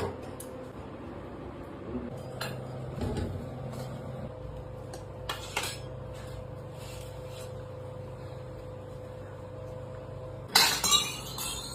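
Dishes and metal utensils clinking and knocking now and then over a steady hum, with a louder clatter about ten and a half seconds in.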